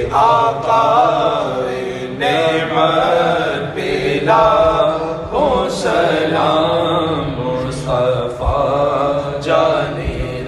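Male voice singing an Urdu manqabat, a devotional praise poem, unaccompanied, in long wavering melismatic lines over a steady low drone.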